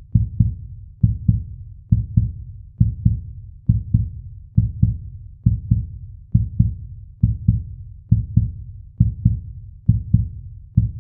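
Heartbeat sound effect: steady low double thumps, lub-dub, a little more than once a second.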